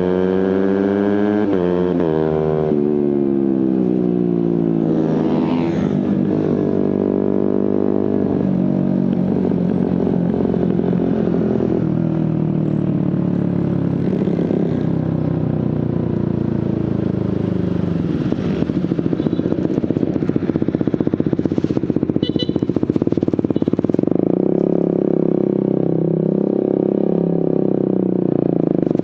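Suzuki GSX-R150's single-cylinder engine through a Prospeed aftermarket exhaust, revs climbing and dropping with quick gear changes, then running on at a steadier, lower pitch. A rapid rattling comes in about two-thirds of the way through.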